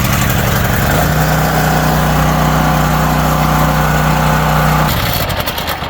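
Tri-fuel portable generator's engine, running on gasoline just after starting, settles into a steady run about a second in. It confirms that the unit works on gas after its maintenance. The steady engine note ends about five seconds in.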